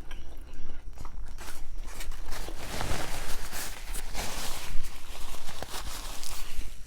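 Close-miked eating sounds: a grinder sandwich being bitten and chewed, with many small mouth clicks and a louder, noisier stretch in the middle.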